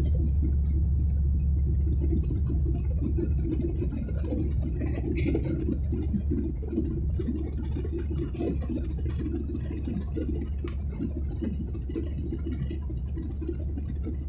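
Cabin noise of a jet airliner in its climb: a steady deep rumble of engines and airflow, slowly getting a little quieter over the span.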